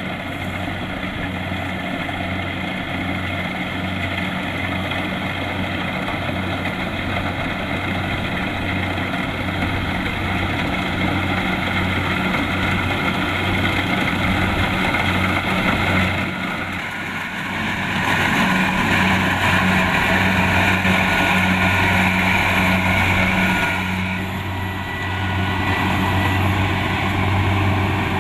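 Kubota DC-70 Plus combine harvester's diesel engine running steadily with a pulsing low hum. About two-thirds of the way in the machine grows louder, with more high clattering machinery noise over the engine.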